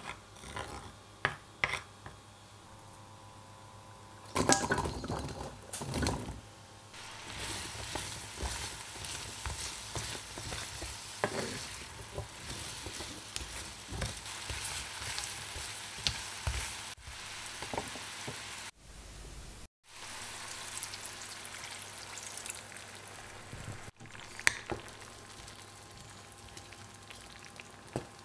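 Diced kohlrabi frying in melted butter in a pan, with a wooden spoon tapping and scraping as it is stirred. About four seconds in there is a loud clatter and a burst of sizzle as the cubes go into the hot butter, then a steady sizzling hiss with the spoon clicking. The sound cuts out for a moment after about twenty seconds.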